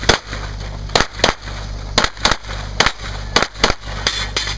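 9mm CZ 75 SP-01 Shadow pistol firing rapidly: about ten sharp shots, mostly in quick pairs a quarter-second apart, with short pauses between pairs as the shooter moves from target to target.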